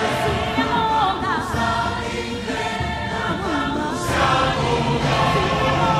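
Music with a choir singing, sustained voices bending in pitch over a steady low accompaniment.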